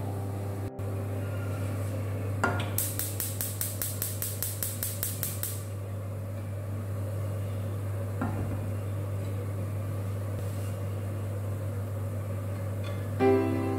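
Gas hob's electric igniter clicking rapidly for about three seconds as a burner is lit, over the steady low hum of a kitchen chimney hood's fan. A few seconds later a saucepan is set down on the burner grate with a single knock.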